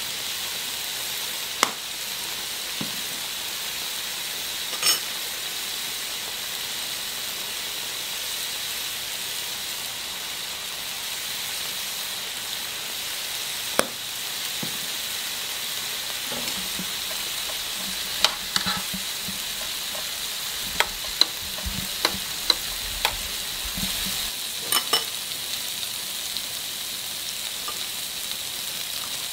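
Pork, mushrooms and vegetables sizzling on a Korean barbecue grill plate: a steady frying hiss with scattered sharp pops and clicks, more frequent in the second half.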